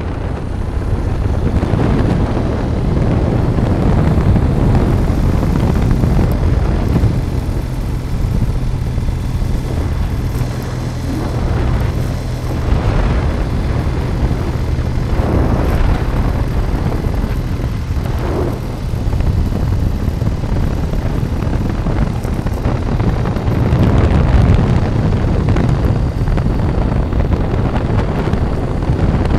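Motorcycle riding at road speed: steady engine drone under heavy wind buffeting on the microphone, with a few brief surges of wind noise around the middle.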